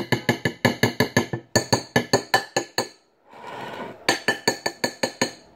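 A utensil beating dough in a bowl, clinking against the bowl's side about seven times a second. About three seconds in the clinking stops for a brief scraping sound, then starts again.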